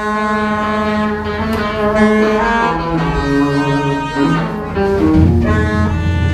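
Loud live rock band playing an instrumental: electric guitars, bass and drums with long held notes that shift every second or so. The low end swells about five seconds in.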